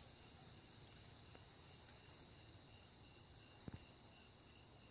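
Faint night insects: a steady high-pitched drone of crickets with a regular chirp about three times a second. A faint click comes about three and a half seconds in.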